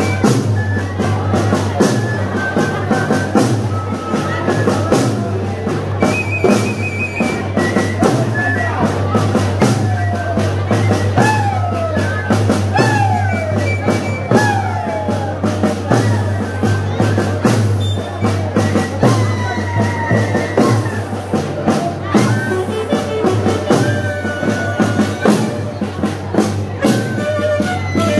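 Live band music: a saxophone melody with sliding notes over a steady beat of snare drum and bass drum, played loud throughout.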